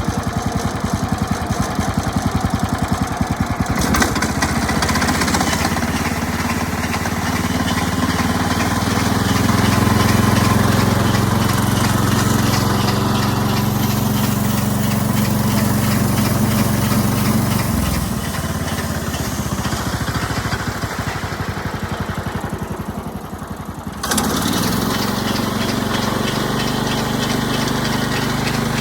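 Stationary band saw running with a steady motor hum. The sound dips briefly about two-thirds of the way through, then changes abruptly a little later.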